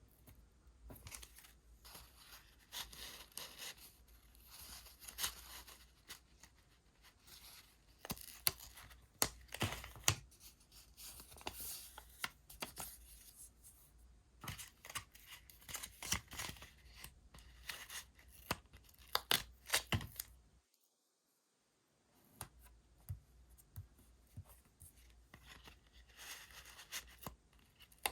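Paper decorating materials being torn and handled at close range: many short, crisp rips, rustles and clicks, with scissor snips among them. The sound drops out completely for about a second about two-thirds of the way through.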